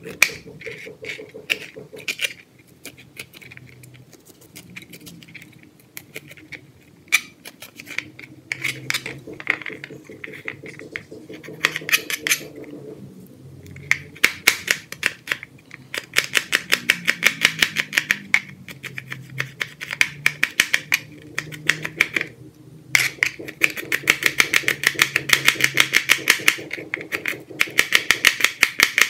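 Kitchen knife cutting on a plastic cutting board: scattered single taps while cauliflower florets and garlic cloves are cut, then, about halfway through, fast, even chopping as garlic is minced, several strokes a second, with a short pause near the three-quarter mark.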